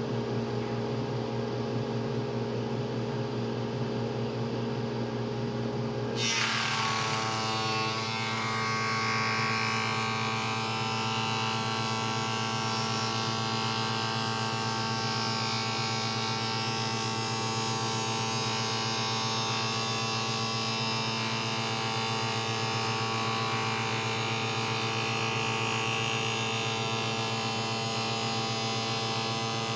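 Woodshop machinery running: a steady motor hum, then about six seconds in a second, higher-pitched machine starts, comes up to speed and runs on steadily.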